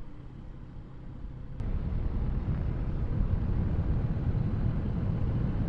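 Motorcycle riding along: a steady rumble of engine and wind noise on the rider's action camera, which starts abruptly and loudly about a second and a half in after a quieter stretch.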